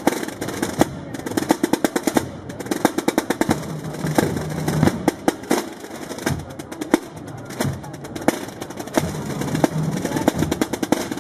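A massed corps of Holy Week procession drums (snare-type tambores) beaten with sticks in unison, playing fast runs of sharp strokes and rolls in a marching rhythm.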